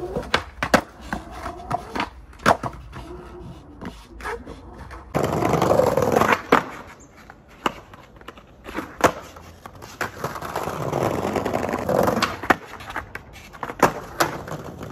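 Skateboard rolling over paving, with sharp clacks of the tail popping and the board landing, several times.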